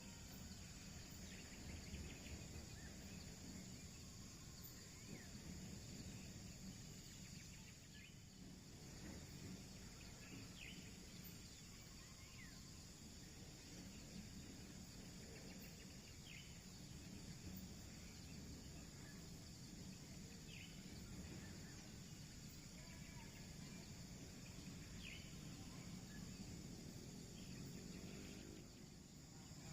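Faint outdoor ambience: a steady high insect drone, scattered short bird chirps and a low rumble underneath.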